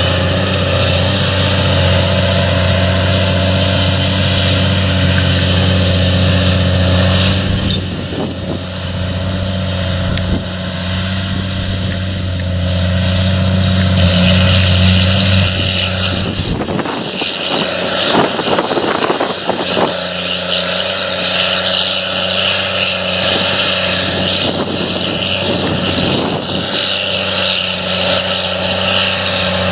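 An engine running steadily with a low hum. Its note changes about a quarter of the way through and again a little past halfway, where the deepest part of the hum drops away and the sound turns rougher.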